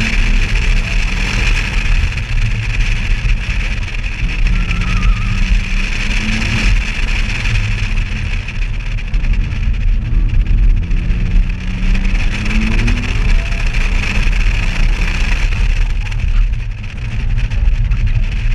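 BMW car engine rising and falling in pitch as the car accelerates and slows between cones, under a heavy low wind rumble on a microphone mounted outside the car.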